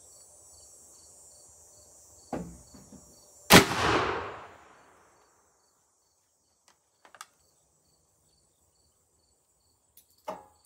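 A single shot from a CVA Wolf .50-caliber muzzleloader loaded with one 50-grain Pyrodex pellet: a sharp crack with a ringing tail of about a second and a half, preceded about a second earlier by a shorter, duller knock. A few light metallic clicks follow as the rifle's breech is handled.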